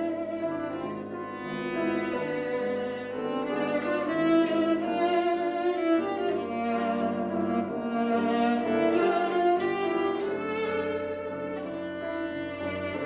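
Chamber ensemble of bowed strings playing live, with violin and cello carrying held and moving notes.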